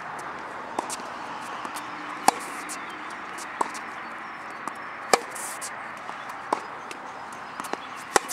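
Tennis racquets striking the ball in a baseline rally: six crisp hits about a second and a half apart, alternating between a loud near hit and a fainter far one, over a steady background hiss.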